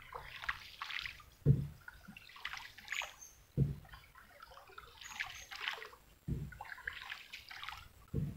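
River water sloshing and trickling in a regular rhythm: a dull low knock, then a splashy wash, repeating about every two seconds.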